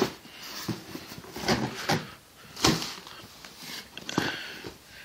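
Cardboard packaging and plastic air-bubble fill being handled: a series of irregular rustles and knocks as a boxed camcorder is pulled out of its shipping box.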